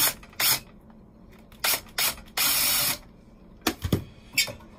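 Cordless drill-driver run in short trigger bursts, then one longer run of about half a second, unscrewing the fasteners on a Tecma macerating toilet's pump assembly. A few sharp clicks and knocks follow near the end.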